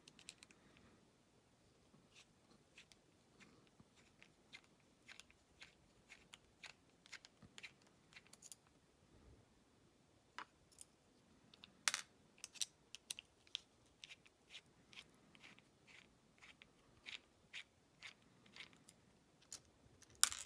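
Faint, irregular small metallic clicks and taps of a challenge lock and its key being handled and worked, a few a second, one louder click about halfway through.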